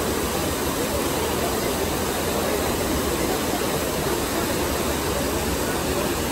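Trevi Fountain's water cascading and splashing over the rocks into the basin: a steady, even rush of falling water.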